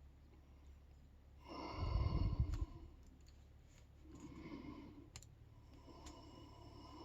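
A heavy sigh about two seconds in, the breath blowing on the microphone, then softer breaths, with a few faint clicks of lock-picking tools working inside the padlock.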